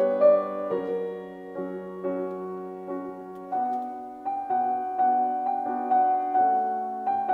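Grand piano played solo: a slow classical piece of held chords under a melody, a new note or chord struck about every half second.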